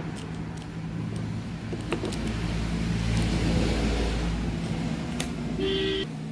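Motorcycle engine running steadily, its note swelling about two seconds in and easing off again, with a short high-pitched beep near the end.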